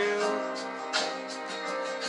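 Song accompaniment between sung lines: guitar chords ringing on, with a new chord struck about a second in.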